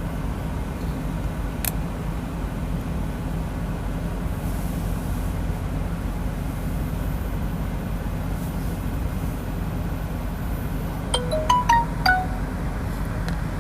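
Steady low rumble of an idling truck engine. About eleven seconds in, a quick electronic jingle of five or six short notes plays within about a second.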